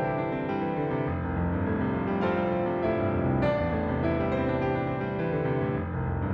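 Garritan CFX virtual concert grand piano, sampled from a Yamaha CFX, playing a slow, sustained passage of rich chords, with new chords struck about two and three and a half seconds in.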